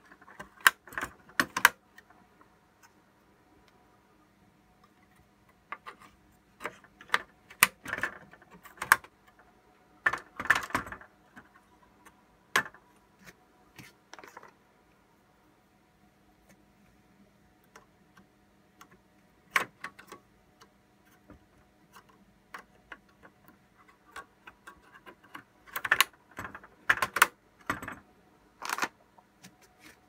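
Irregular plastic clicks and knocks of 8GB RAM modules being handled and pressed into the DIMM slots of an HP Z620's second-CPU riser board. They come in clusters, with a quieter stretch in the middle.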